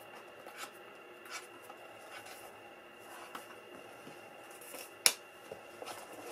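Cardstock flaps and pages of a handmade scrapbook album being handled: soft rustling and sliding of paper with a few light taps, and one sharp tap of card about five seconds in.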